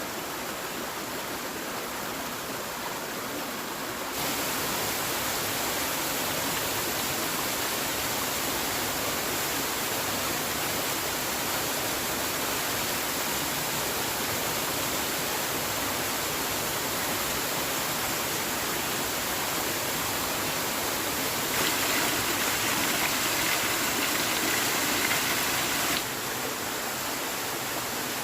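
Steady rushing sound of falling or running water. It gets louder and brighter suddenly about four seconds in, louder again about three-quarters of the way through, and drops back abruptly near the end.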